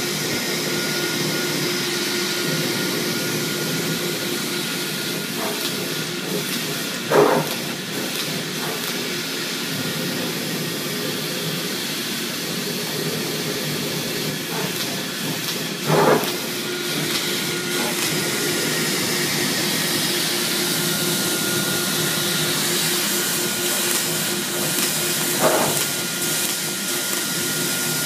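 Preco CNC laser cutting system running: a steady hiss of moving air over a constant hum. Three brief louder swells come about nine seconds apart.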